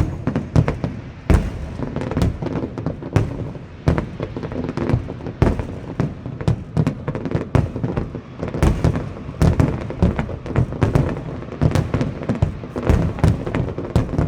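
Aerial fireworks display going off in rapid, irregular succession: many sharp bangs and crackles a second with no let-up.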